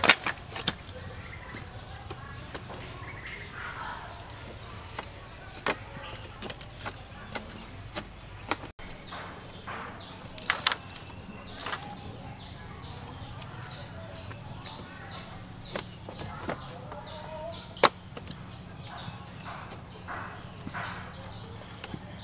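Bamboo slats knocking and clacking against each other as they are handled and fitted into a bamboo slat wall panel. The knocks come singly at irregular intervals, and a sharp one near the end is the loudest.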